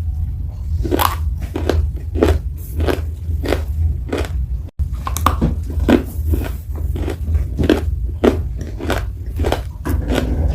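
Close-miked biting and chewing of crunchy edible clay: a steady run of dry crunches, about two a second, over a constant low rumble.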